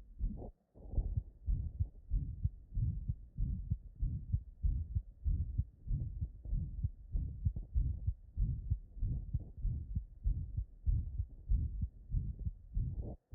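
Heartbeat heard through a stethoscope: regular low lub-dub beats with a systolic murmur whooshing between them. The sound cuts out briefly about half a second in.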